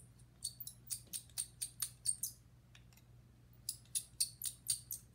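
Quick runs of small, sharp, high-pitched clicks, about four or five a second, as a small metal hand tool picks and pries at the plastic parts of a DJI Phantom 4 gimbal; there is a pause of about a second and a half around the middle.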